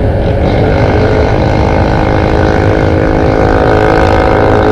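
Motor scooter engine running steadily while riding, with a heavy rumble of wind on the microphone.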